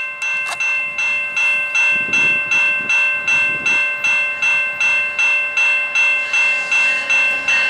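Railway level-crossing bell ringing in a steady rhythm, about two and a half strokes a second. The noise of an approaching GO commuter train grows underneath it near the end.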